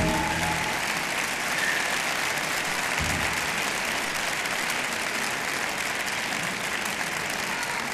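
Audience applause filling a concert hall, steady and even, as the orchestra's last held chord dies away in the first second.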